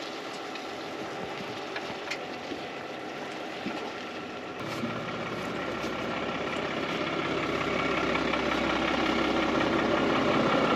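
Toyota LandCruiser 300 Series' twin-turbo V6 diesel working in low-range four-wheel drive, towing a tandem-axle caravan across soft, slippery ground. The engine comes in about halfway through and grows steadily louder.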